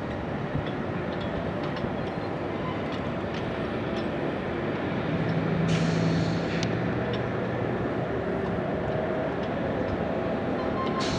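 Gottwald mobile harbour crane running while it slews its clamshell grab, a continuous machinery drone. A low hum swells about five to six seconds in, and a faint steady whine carries through the second half.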